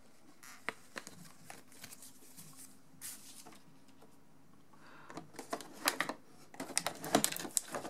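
Quiet paper handling as a folded instruction sheet is put aside, then a run of clicks and crinkling as hands work in a box's clear plastic packaging insert, louder in the last three seconds.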